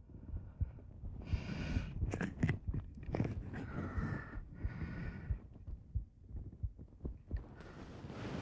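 A person's soft breaths and exhales close to the microphone, several separate swells, with soft low thumps and a few faint clicks between them.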